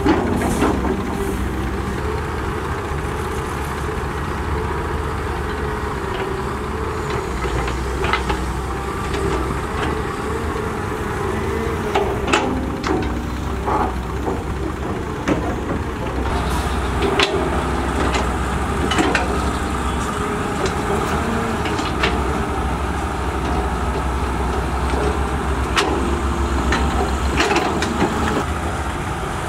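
Caterpillar 320D hydraulic excavator's diesel engine running steadily under load as it digs and lifts wet mud, with scattered sharp knocks and clanks through the second half.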